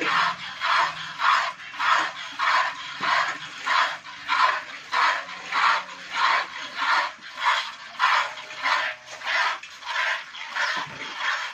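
Hand-milking a cow into a plastic bucket: steady rhythmic hissing squirts of milk hitting the bucket, a little under two squirts a second as the hands alternate on the teats.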